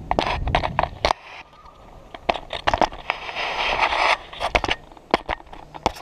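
Handling noise from an action camera on a pole rubbing and scraping against clothing and climbing gear, with many sharp knocks and clicks. There is a low rumble in the first second and a longer stretch of scratchy rubbing a few seconds in.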